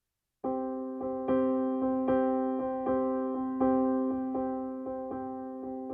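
Background music: a keyboard tune of struck notes at an even pace, each fading before the next, starting about half a second in.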